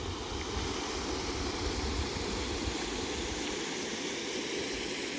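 Steady rush of South Falls, a large waterfall, an even noise with a strong low rumble that does not change through the clip.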